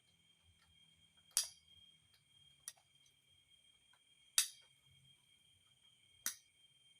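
Sharp clicks or knocks at uneven intervals, three loud ones and one softer, over a faint steady high-pitched whine.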